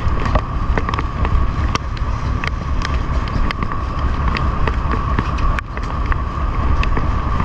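Boat engine running steadily with a constant whine, under a low wind rumble on the microphone and scattered small clicks and knocks.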